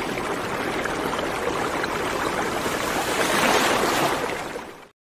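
Steady rushing noise of earthquake shaking, swelling about three and a half seconds in, then fading out and cutting off abruptly near the end.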